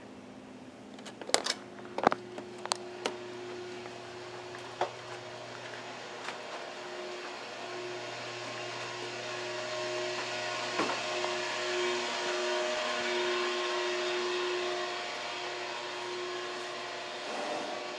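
A metal door lock and latch clicking several times, then a steady mechanical hum with a hiss that grows louder, like machinery or ventilation running in a basement service tunnel.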